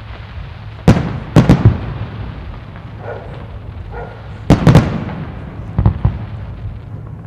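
Aerial firework shells bursting: sharp booms with echoing tails, in three clusters of two or three, about a second in, near the middle and again near the end.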